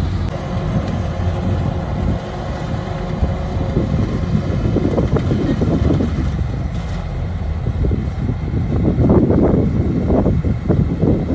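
Kubota DC-105X combine harvester running in the field: a steady low engine drone, with rougher, louder surges about halfway through and again near the end.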